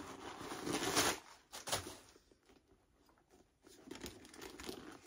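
Rustling and crinkling of packing stuffing being pulled out of a mini backpack, in a few short bursts with a near-silent pause in the middle.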